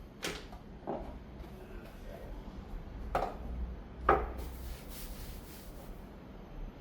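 Coffee-making gear being handled and set down on a counter: four knocks, the loudest about four seconds in, followed by a short rubbing sound.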